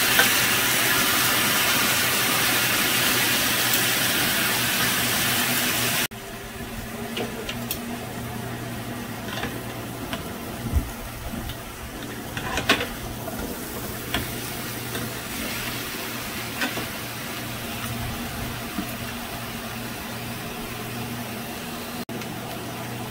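Chicken leg quarters sizzling in a cast-iron grill pan, loud for about six seconds, then after a sudden cut a quieter sizzle over a steady low hum, with a few sharp clicks of metal tongs.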